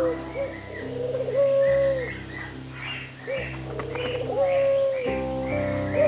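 Rock pigeons cooing: two long coos, with another beginning near the end, over background music with plucked guitar.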